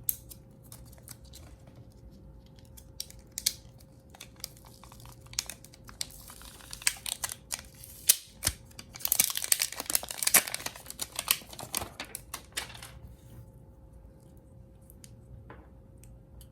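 Hands working on a phone repair: scattered small clicks and taps, with a few seconds of crinkling and tearing in the middle, like plastic packaging or adhesive being pulled.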